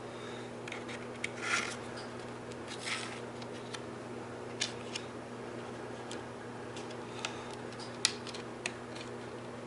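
Plastic fat-bike fender and its hardware being handled and fitted to the fork: scattered light clicks and ticks, two brief scraping rustles in the first few seconds, and a sharper click about eight seconds in, over a steady background hum.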